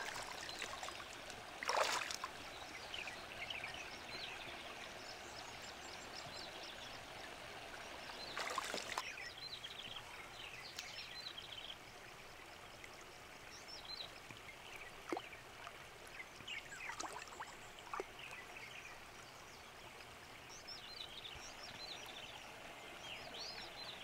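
Faint sloshing and trickling of shallow river water as hands stir and feel along the rocky bottom, with two louder splashes about two and nine seconds in and a few small drips and clicks later.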